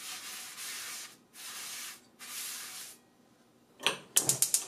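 Paper towel wiping out a frying pan: three long rubbing strokes with short breaks between them, then a quick run of sharp clicks near the end.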